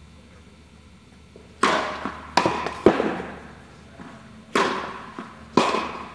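Tennis ball being struck by rackets and bouncing on the court during a rally: five sharp pops, the first three close together, then two more about a second apart. Each one echoes and fades slowly in a large indoor tennis hall.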